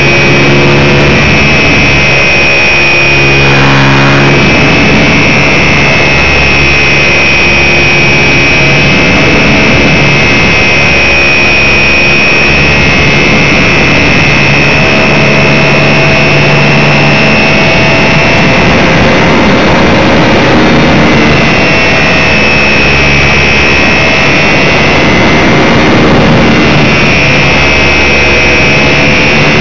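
RC Super Cub model plane's motor and propeller running steadily in flight, heard close from a camera on the plane itself. A high whine wavers gently in pitch with the throttle and airspeed, over a lower hum that swells and fades.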